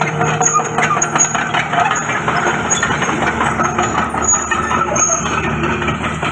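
Komatsu D31PX crawler bulldozer's diesel engine running steadily, with a dense irregular clatter over it.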